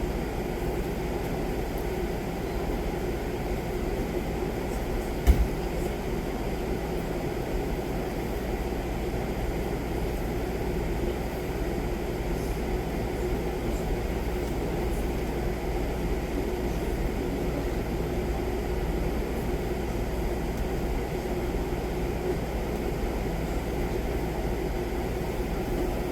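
Steady low rumble and hum of room noise, like a ventilation system running, with one sharp knock about five seconds in.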